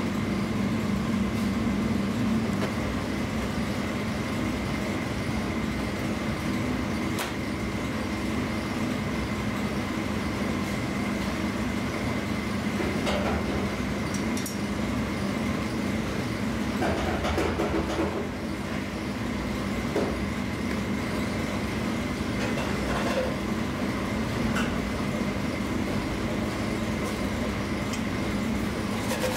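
Steady mechanical background drone with a constant low hum, with a few short light clicks and taps from food being handled on the counter.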